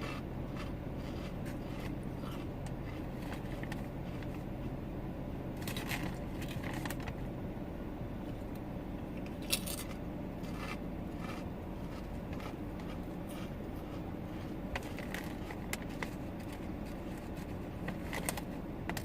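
Scattered short crackles and crunches from a bag of chips being handled and eaten, over the steady low hum of a car's interior; a low drone in the hum stops about a third of the way in.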